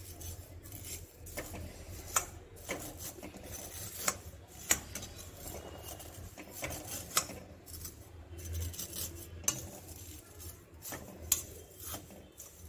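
A steel spoon scraping and clinking against a stainless steel kadai while stirring and tossing vermicelli being warmed in ghee. Sharp clinks come irregularly, about once a second, over steady scraping.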